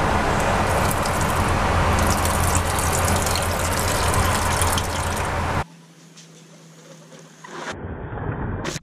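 Water running from an airliner lavatory's push-button faucet over the steady low drone of the aircraft in flight. It cuts off suddenly about five and a half seconds in, leaving a quieter stretch with a brief louder sound near the end.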